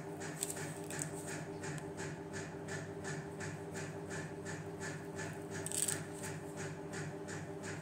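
Background music with a steady, quick beat of about four ticks a second over a low sustained tone. About six seconds in, a brief paper rustle as a book page is turned.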